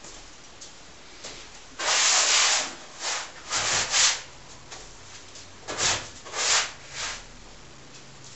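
A flat hand-held tool rubbed and scraped across the painted surface of a large acrylic canvas on the floor, in about seven short strokes, the first and longest about two seconds in.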